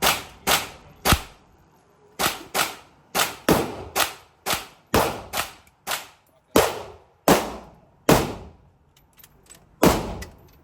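A series of about sixteen gunshots fired one after another at an irregular pace, mostly half a second to a second apart, each ringing out in a short echo of an indoor range. There is a longer pause near the end, with a few faint clicks in it, before a last shot.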